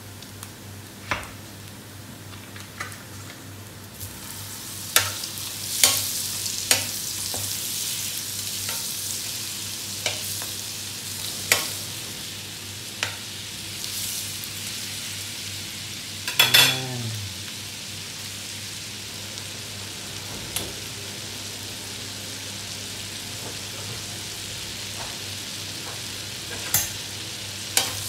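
Butter melting and sizzling in a hot steel wok with toasted pork bits, the frying hiss swelling a few seconds in. A metal spatula clicks and scrapes against the wok throughout, with one brief falling squeal partway through.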